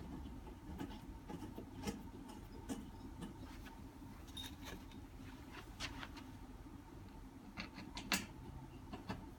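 Irregular light clicks and taps of screws being handled and set into the countersunk slots of a lectern base, one sharper knock about eight seconds in, over a faint steady hum.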